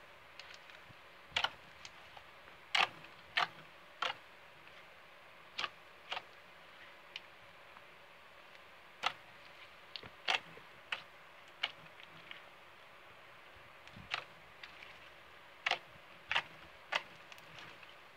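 Clear red glitter slime being squeezed, poked and stretched by hand, giving sharp wet pops and clicks at irregular intervals, roughly one a second.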